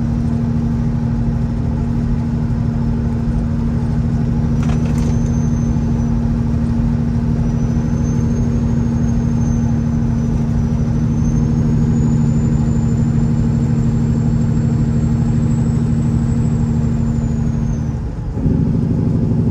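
Semi truck engine running steadily under way, heard from inside the cab, with a faint high whine rising and falling above it. Near the end the engine note briefly drops and then comes back at a changed pitch.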